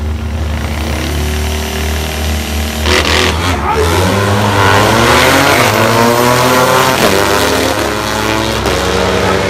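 Two sprint motorcycles launching off the line on an eighth-mile drag strip, about three seconds in. Their engines rev hard and climb in pitch as they accelerate away, over a steady low hum.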